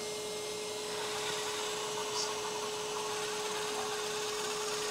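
Steady hum at one unchanging pitch over a faint whirring hiss, from a powered-up LESU ET35 RC hydraulic excavator model idling with its electronics on.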